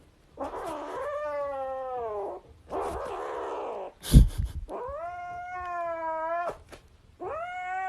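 A cat yowling in three long, drawn-out calls, with a breathy, unpitched stretch between the first two. A short loud thump comes about four seconds in.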